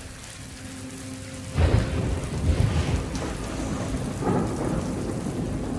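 Shower spray hissing steadily. A deep rumble breaks in suddenly about one and a half seconds in and swells again near four seconds.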